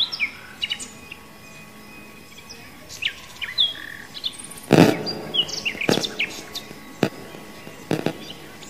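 Birds chirping in short, quick calls, scattered throughout. A sharp knock comes about five seconds in, with softer ones after it.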